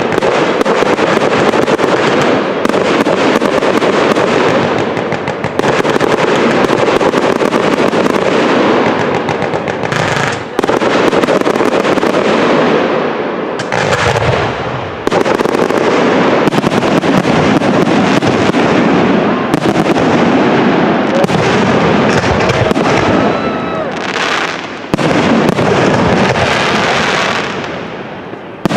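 Fireworks display: a dense, continuous barrage of shell bursts and crackle, loud throughout, with a few brief lulls.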